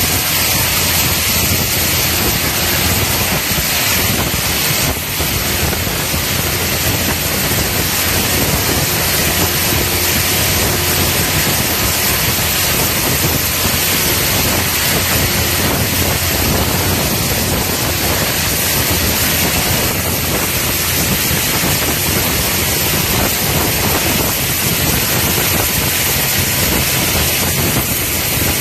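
Mosmatic TYR duct cleaner's rotating high-pressure water jets spraying inside a pipe, a loud, steady rushing hiss.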